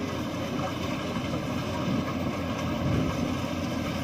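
Yanmar YH850 combine harvester running steadily while cutting and threshing ripe rice, a continuous machine drone with no pauses.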